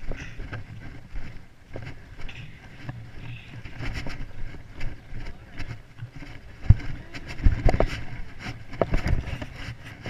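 Handling noise on a hand-carried camera: an uneven low rumble with scattered knocks and bumps, a few louder ones in the second half.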